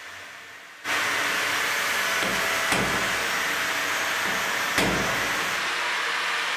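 Angle grinder cutting into the edge of a steel door, starting suddenly about a second in and running as a steady, loud grind. Two sharp knocks stand out partway through, and near the end the disc comes off the metal and spins on.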